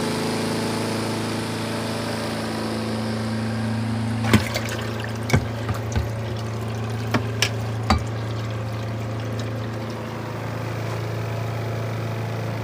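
Kuppet portable twin-tub washer's spin basket running with a steady motor hum, water trickling out of the spun clothes. Several sharp clicks or knocks come partway through.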